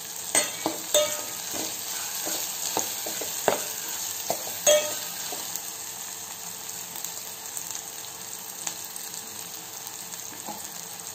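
Small onions, green chillies and spice paste sizzling in oil in a stainless steel pot. A steel spoon stirs and clinks against the pot through the first five seconds or so, then steady sizzling carries on with only an odd tap.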